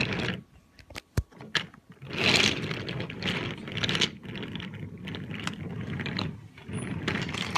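Wooden toy train cars with wooden wheels rolling and rattling along a glossy tabletop as a hand pushes them, a steady clatter from about two seconds in, after a few sharp clicks.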